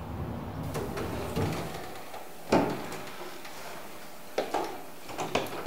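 A house door being opened as someone comes in: a string of clicks and knocks from the latch and door, the loudest about two and a half seconds in and a cluster near the end.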